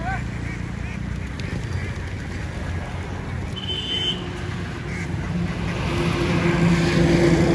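A vehicle engine rumbling steadily, growing louder from about two-thirds in, with one short high beep about halfway.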